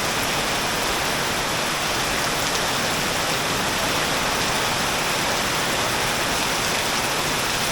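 Torrential tropical downpour, rain falling so hard it can't be seen through, a dense, steady hiss of rain on surfaces with no let-up.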